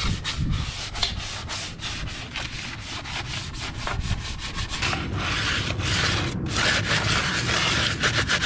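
A brush scrubbing the inner barrel of an alloy wheel wet with foaming cleaner, in quick back-and-forth strokes at about three a second. From about five seconds in the scrubbing turns faster and steadier.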